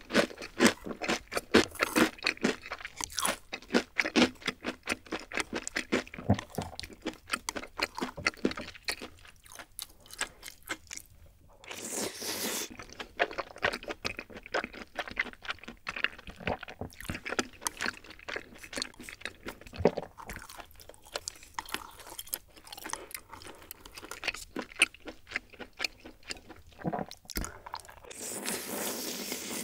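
Close-miked chewing of soft, saucy rosé tteokbokki, with rapid wet mouth clicks and smacks. About twelve seconds in there is a brief louder wet sound, and near the end a longer slurp of sauce-coated noodles from a ladle.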